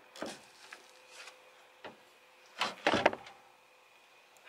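Pickup tailgate being slid back onto its hinge pivot. There is a light click, then a cluster of clunks and scraping about two and a half to three seconds in as it goes into place.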